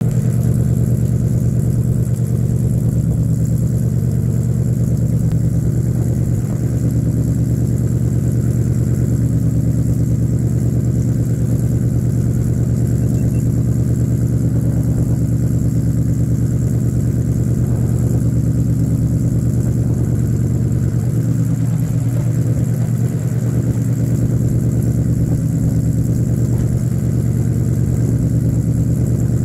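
Ford Mustang's dual exhaust idling steadily with a low-pitched, even note, heard close behind the tailpipes.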